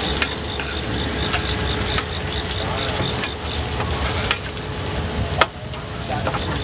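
Food sizzling as it fries and is stirred, with a few sharp clinks of a utensil against the pan.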